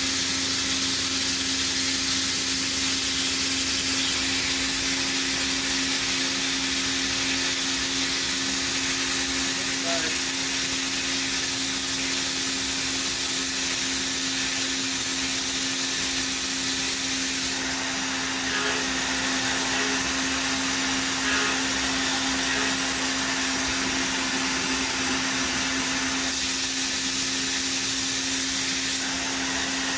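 Steady din of CNC Swiss-type lathes running in a machine shop: a continuous hiss with a steady low hum under it.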